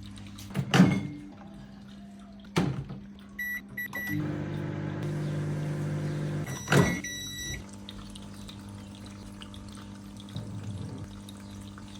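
Microwave oven in use: two sharp thuds, a quick run of three keypad beeps, then the oven's steady running hum for a couple of seconds, cut off by another thud and a longer beep.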